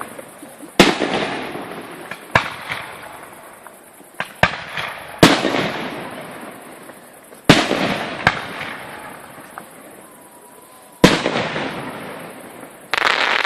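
Aerial fireworks shells bursting overhead: about eight sharp bangs one to three seconds apart, each trailing off in a long fading rumble with crackle.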